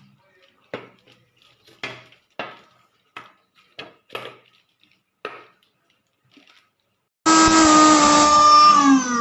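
A few light knocks and clicks, then the Suruchi Elantra 800-watt mixer grinder's motor starts abruptly. It runs loudly at a steady high whine for under two seconds and is switched off, its pitch falling as it spins down right at the end.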